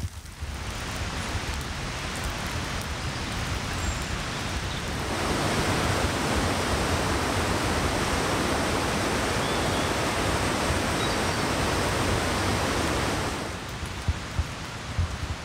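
Steady rushing of creek water running over rapids, loudest through the middle of the stretch, then falling back near the end to a softer hiss of rain.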